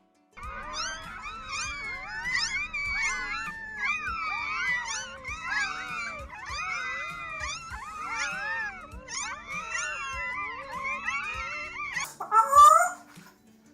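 Several dogs howling and whining together, many overlapping calls rising and falling in pitch. A short, louder, different sound breaks in near the end.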